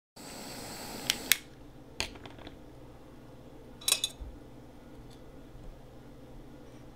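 Butane torch flame hissing on a glass dab rig's nail, stopping a little over a second in; then light clinks of glass on glass as the rig's pieces are handled, two sharp ones as the hiss ends, one at about two seconds and a quick cluster near four seconds.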